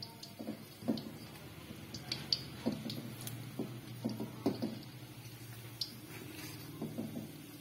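Rice-flour dough pieces deep-frying in a steel wok, the oil bubbling while a fork taps and scrapes against the wok at irregular moments as the pieces are turned. A steady low hum runs underneath.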